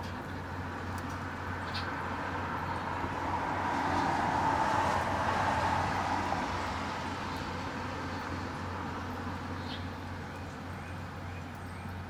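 Distant vehicle passing over a steady outdoor background hum, swelling to its loudest about four to six seconds in and fading again. Two faint short high chirps.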